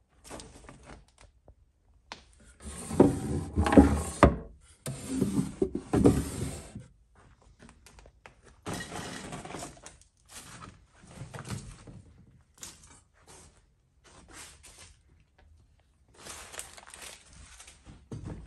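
Irregular scrapes, knocks and crunches of clutter and crumbling debris being moved and stepped on. The loudest stretch is a run of scraping and clattering from about three to seven seconds in, followed by shorter scuffs and knocks.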